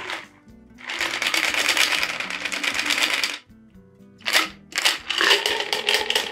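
A shaken cocktail being strained from a metal shaker tin through a Hawthorne strainer and a fine-mesh strainer into a coupe glass: a steady rush of pouring liquid with ice rattling against the strainer. A pause follows, then a run of short rattles near the end as the last of it is shaken through. Background music plays throughout.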